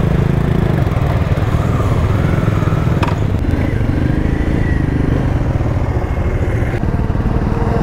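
Motorcycle engines running at idle and low revs, a steady low rumble with fast even beats, as loaded touring bikes move off one after another.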